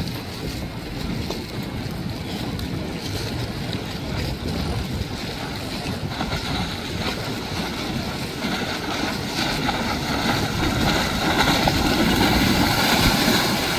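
Wind buffeting the microphone over choppy water, with the rushing splash of a small boat's hull and spray growing louder over the last few seconds as it comes closer.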